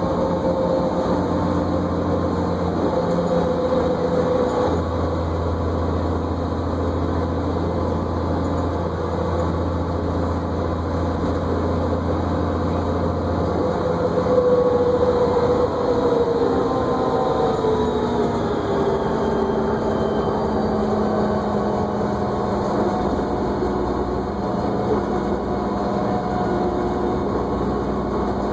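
New Flyer D40LFR diesel transit bus heard from inside the cabin while under way: engine and drivetrain running with a whine, whose pitch falls about halfway through as the bus slows.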